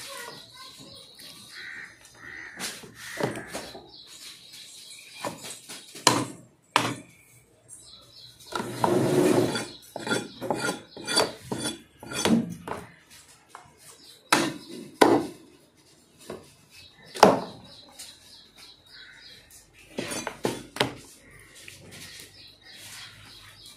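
Cleaver chopping goat meat and bone on a chopping block: irregular single heavy chops, a second or more apart.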